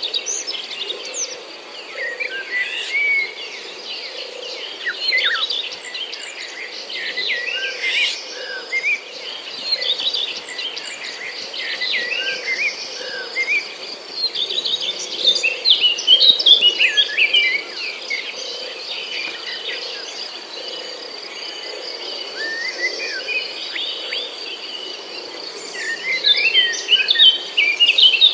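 Many birds chirping and calling over a steady high insect trill, the chirps thickest about halfway through and again near the end.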